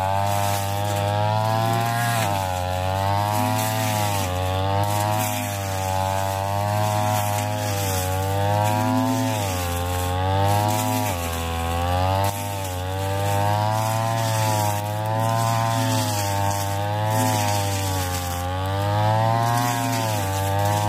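Ryu backpack brush cutter engine running at high revs while cutting tall, thick grass. The engine pitch dips and recovers every second or two as the cutting head works into the stems.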